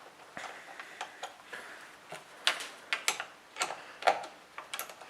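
Wrenches clicking and clinking on a car battery terminal clamp's nut and bolt as it is tightened: irregular sharp metal clicks, about two a second.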